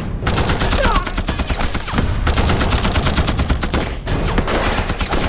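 Heavy, continuous battle gunfire from a war drama's soundtrack: machine guns and rifles firing rapidly together, easing slightly about two seconds in and again near four seconds.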